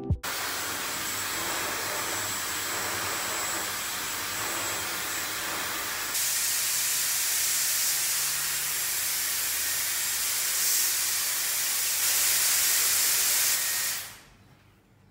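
Handheld hot-air hair dryer blowing a steady rushing hiss while drying long hair. It gets louder about six seconds in and again near twelve seconds, then cuts off about a second before the end.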